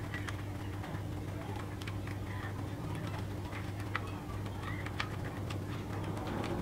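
Small scattered clicks and ticks of a screwdriver working a wire into a plastic screw-terminal connector on a ceiling fan's motor housing, over a steady low hum.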